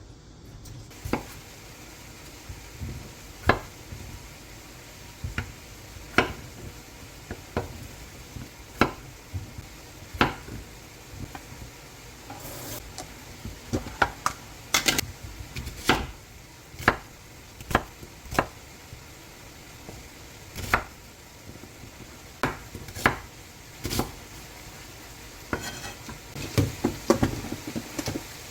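Kitchen work: utensils, dishes and pans knocking and clinking in irregular single taps, roughly one every second or two, with a busier cluster of clatter near the end.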